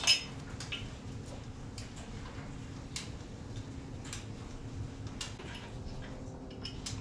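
Light, irregular metallic clicks and ticks, roughly one a second, of a wrench working a carburetor mounting nut loose on a Norton Commando engine, with a sharp double click at the start.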